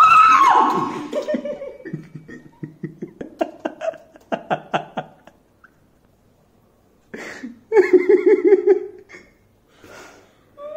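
A woman's startled scream that falls in pitch, followed by bursts of laughter. After a short pause there is a sharp breath about seven seconds in and another run of laughter.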